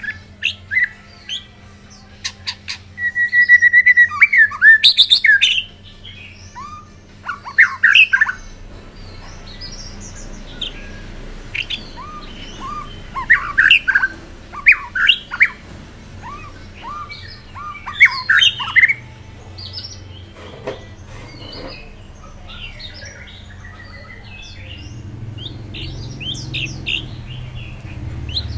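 White-rumped shama singing: a string of varied whistled phrases of quick rising and falling notes, loudest in a rapid run about three to six seconds in, with further bursts of song after it.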